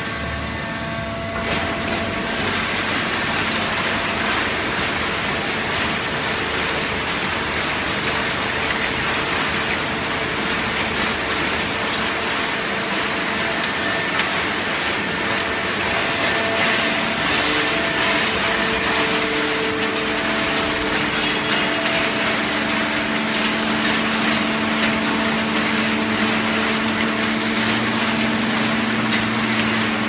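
Fully automatic horizontal hydraulic baler running: a steady mechanical hum and hiss from its hydraulic pump drive, stepping up in loudness about a second and a half in.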